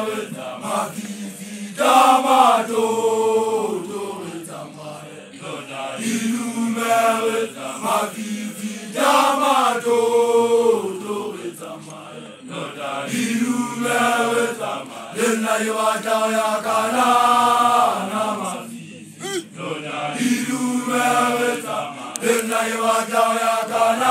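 A group of voices chanting a traditional song together, in sung phrases that swell and fade every three or four seconds.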